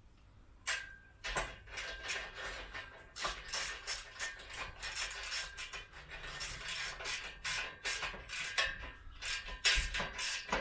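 Rapid, irregular metallic clicking and clinking of a ratchet and steel parts as bolts are worked on an engine crane under assembly. The clicks start about a second in and keep coming, several a second.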